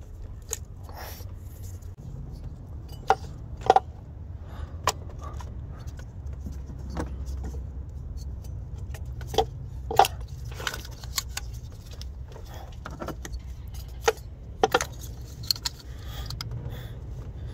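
Nissan Sentra ignition coils being pushed back down onto the spark plugs: scattered plastic clicks and knocks at irregular intervals, over a steady low rumble.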